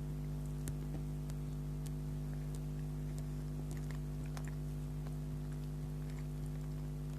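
Faint chewing with a few small mouth clicks, scattered through, over a steady low electrical hum.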